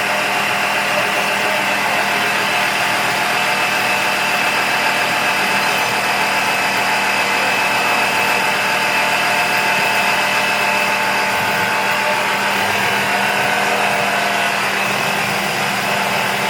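Air compressor running steadily, with a constant motor hum, filling the tank that supplies the air horns.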